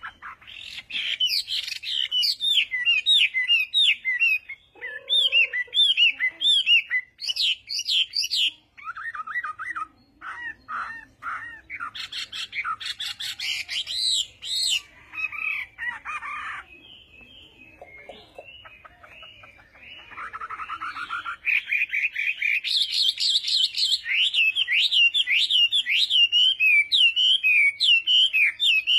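Small birds chirping and singing in long runs of quick, high chirps, several voices overlapping, with a quieter lull a little past the middle.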